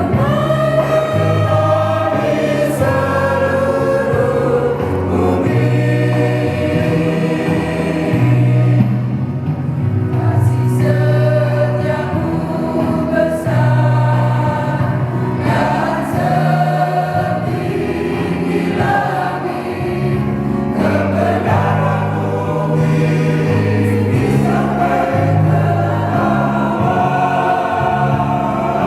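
Church choir singing a hymn in parts, holding long notes that change every second or two.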